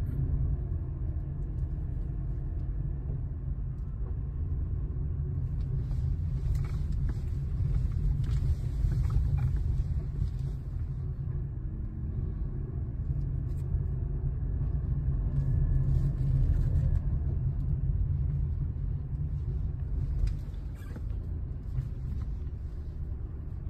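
Steady engine and road rumble of a small Suzuki hatchback driving along, heard from inside the cabin, with a few faint rattles and clicks now and then.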